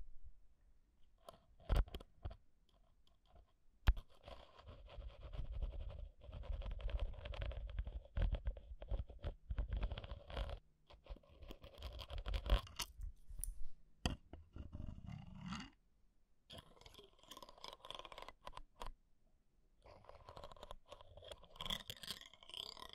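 Metal ear pick scraping and tapping on the microphone capsules of a Zoom H1 handheld recorder, heard very close as crackly scratching with a deep rumble. A few sharp clicks come first, then long stretches of scraping broken by brief pauses.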